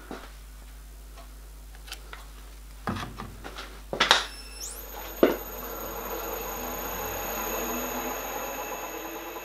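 Bench drill press switched on with a click about four seconds in: its motor whines up to speed, then runs with a steady high whine. A sharp knock follows, and the centre drill cuts into the metal cylinder with a growing scraping hiss.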